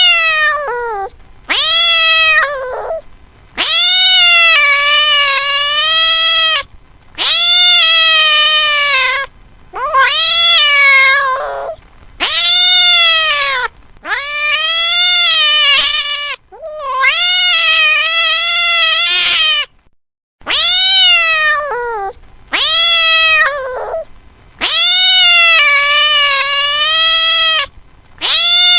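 Cat meowing loudly and insistently: about a dozen long, drawn-out meows in a row with short pauses between, each rising and then falling in pitch.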